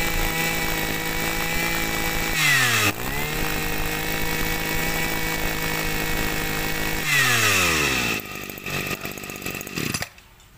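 Small 26 cc two-stroke brush cutter engine held at high revs. It dips briefly about two and a half seconds in, revs back up, then drops to idle about seven seconds in and cuts off near the end.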